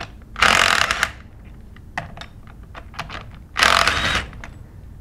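A 3/8-inch cordless electric impact gun hammering in two short bursts about three seconds apart, loosening the bolts of a plastic pump's discharge manifold, with a few light clicks in between.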